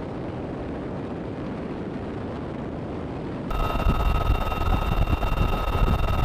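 Military helicopter running, heard as a steady rumble. About three and a half seconds in, the sound cuts to a louder rumble with a steady high whine over it.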